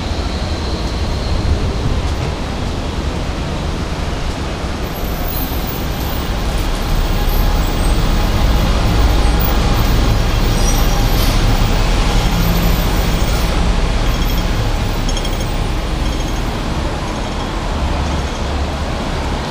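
Busy city road traffic: engines and tyres of buses and cars going by, with a steady low rumble that grows louder around the middle as a double-decker bus passes close alongside.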